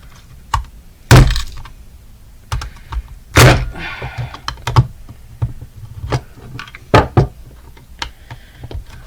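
Irregular hard plastic thunks and clicks from the snooze button of a smashed alarm clock being pushed in and out. The loudest knocks fall about a second in and about three and a half seconds in, with a quick double knock around seven seconds.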